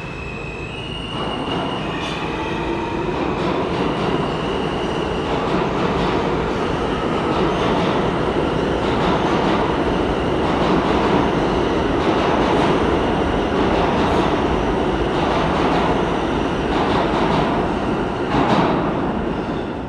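Subway train pulling out of the station and accelerating: its electric motors whine in rising steps, then the rumble of wheels on rail grows loud, with repeated clacks over rail joints. The sound drops off at the very end as it goes into the tunnel.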